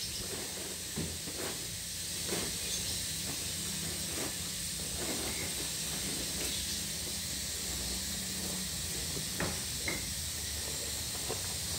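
A steady high-pitched hiss with a few soft footsteps and scuffs of someone walking.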